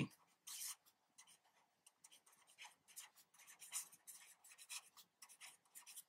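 Pen writing on paper: a run of short, faint scratching strokes as a word is written out by hand.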